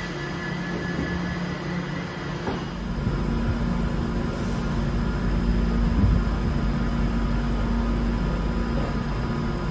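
Class 390 Pendolino electric train standing at the platform, with a steady electrical hum and several constant tones. About three seconds in, a deeper low rumble comes in and stays.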